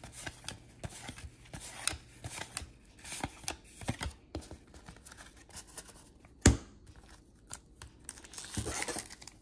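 Hands handling basketball trading cards and a pack wrapper: a run of short crinkles, tears and clicks, with one sharper thump about six and a half seconds in.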